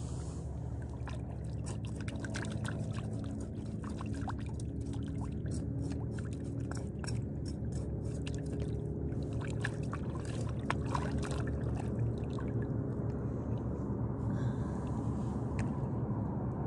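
Lake water splashing and dribbling as a freshly caught black bass is rinsed by hand in the shallows, with many small clicks and splashes, over a steady low hum. It cuts off suddenly at the end.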